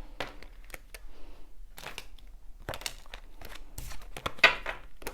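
Tarot cards being handled and drawn from the deck, with scattered short card snaps and slides about once a second; the sharpest snap comes near the end.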